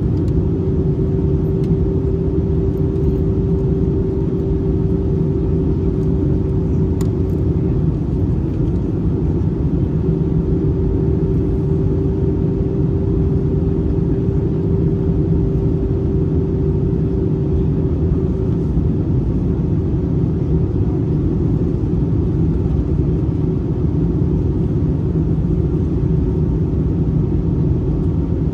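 Steady cabin noise inside an Airbus A321-231 in flight: the low drone of its IAE V2500 engines and rushing air. A steady hum rides on top and fades out twice, about eight seconds in and again past the middle.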